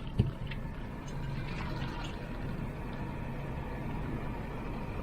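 Strong wind blowing across the microphone, a steady low rumbling rush, with one sharp thump of a gust or a knock just after the start.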